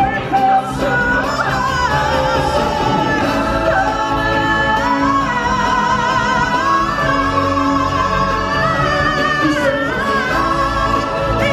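Loud stage-show music with singing: a voice holds long, wavering notes over the band.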